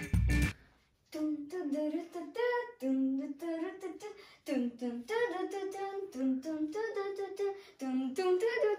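A music track cuts off about half a second in, then a child sings a tune unaccompanied in short rising and falling phrases, with no clear words.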